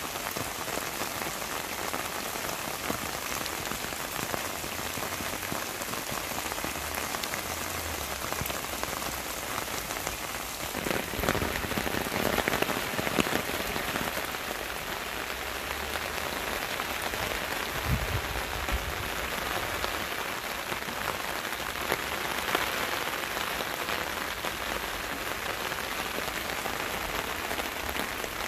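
Steady rain falling on tree leaves and grass, a dense hiss with separate droplets audible. It grows louder for a few seconds somewhat before the middle, and there is a brief low thump about two-thirds of the way through.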